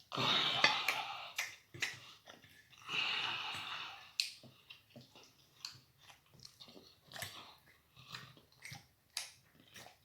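A person chewing and smacking food close to the microphone: many short wet clicks, with two longer, louder stretches of noise at the start and about three seconds in.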